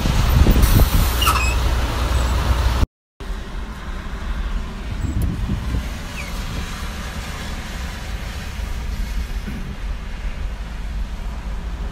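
Strong wind buffeting the microphone over car road noise for about three seconds, then a brief cut to silence. After it comes a steadier, quieter hum of the car driving on a rain-soaked road, heard from inside the car.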